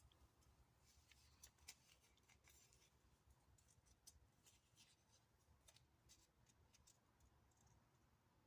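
Near silence with faint, scattered clicks and crackles of stickers being peeled off a sheet and pressed onto small plastic toy lockers.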